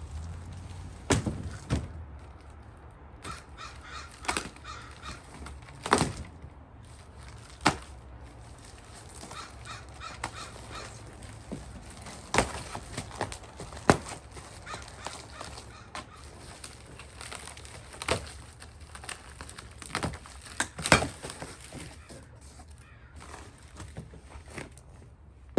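Parts of a dining set being handled and fitted together during assembly: scattered sharp knocks and clicks, irregularly spaced, the loudest about 21 seconds in. Twice a short run of repeated pitched squawk-like sounds.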